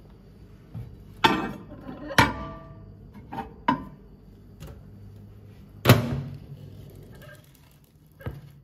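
Ceramic plate being set into a microwave on its glass turntable: a series of sharp clinks and knocks, some ringing briefly, with the loudest thunk about six seconds in.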